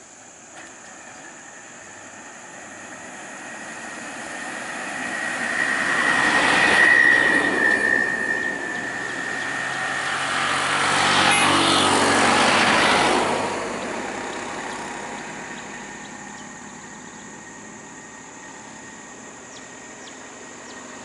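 Heavy road vehicles passing close by, heard as two swells of engine and tyre noise. The first swell carries a high steady whine that dips slightly in pitch as the vehicle goes past.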